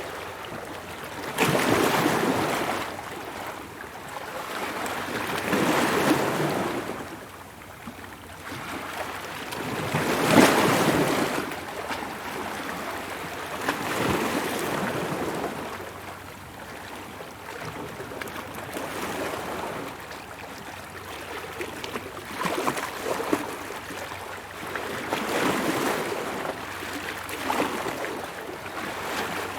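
Ocean waves breaking and washing in, a rushing sound that swells and fades in repeated surges about every four seconds, the loudest about ten seconds in.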